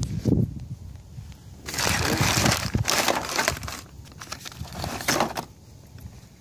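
Crinkling and rustling of plastic as things are handled in a rusty metal file cabinet drawer packed with bottles, cans and bags, in two bouts about two and four and a half seconds in. Wind rumbles on the microphone at the start.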